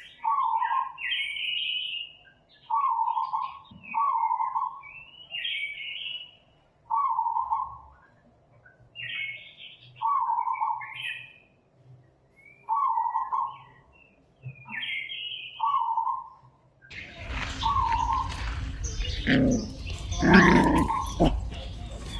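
Short, high-pitched animal cries repeating about once every second and a half. About three-quarters of the way through, a burst of rustling and knocking joins them.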